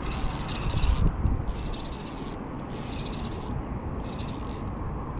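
Spinning reel being cranked to reel in a hooked fish: a steady mechanical whir, with a couple of handling bumps about a second in.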